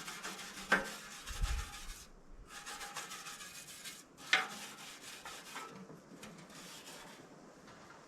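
Soft wire brush being scrubbed by hand over the fuel tank of a Ford 545A backhoe, in quick repeated strokes with short pauses, knocking sharply against the tank twice. The brushing thins out near the end.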